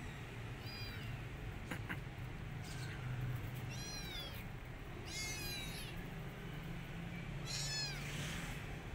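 A kitten meowing: about five high-pitched, falling calls a second or so apart, the one a little past halfway the longest.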